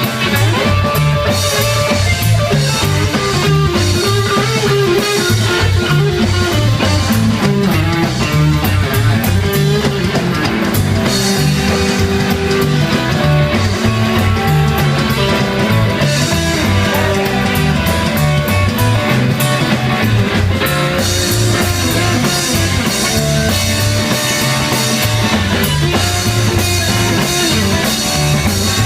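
Live rock band playing an instrumental passage: guitar over a steady bass and drum-kit beat, with no singing.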